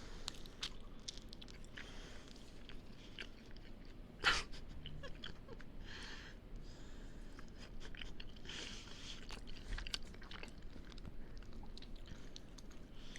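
A person chewing a burrito close to the microphone: soft, irregular wet mouth clicks and smacks, with one sharper click about four seconds in.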